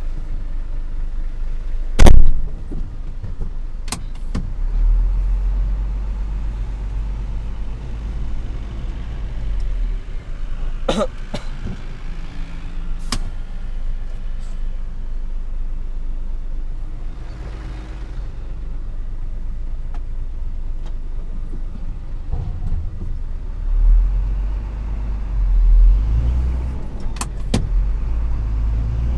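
Dump truck's diesel engine running, heard inside the cab while driving slowly over a rough dirt road, its low rumble swelling twice. Sharp knocks and rattles of the cab and body jolting over bumps cut through it about five times, the loudest about two seconds in.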